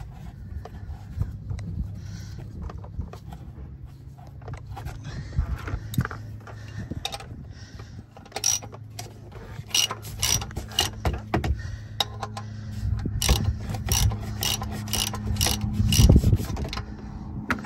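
A half-inch ratchet clicking in runs of quick strokes as it turns the cartridge oil filter housing cap on the 3.5 L V6, over a steady low hum. A louder thump comes near the end.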